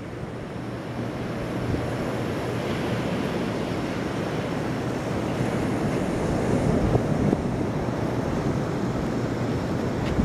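Steady wind blowing across the microphone, mixed with the wash of surf.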